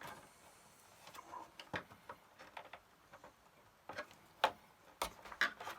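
Scattered light plastic clicks and knocks from the casing and internal parts of a Commodore MPS-801 dot-matrix printer as it is handled and its side tabs are pushed in during disassembly; the sharpest knock comes about four and a half seconds in.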